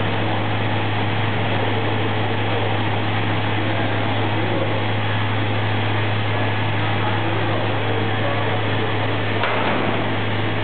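Olive oil mill machinery running steadily, a constant mechanical drone with a strong low hum. A brief knock sounds near the end.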